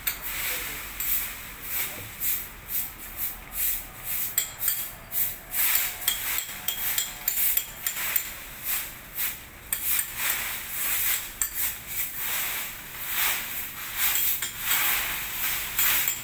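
A hand tool working a hard stone or concrete surface, with short sharp scraping strokes repeated a few times a second in an uneven rhythm.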